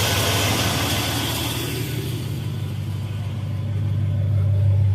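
Chevrolet Silverado's 5.3-litre V8 running with a steady low hum. A broad hiss over it fades away in the first two seconds.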